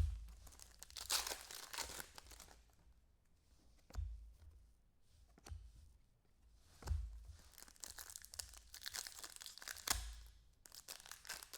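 Baseball card pack wrappers being torn open and crinkled, with cards being handled, in repeated rustling bursts and a few soft thumps.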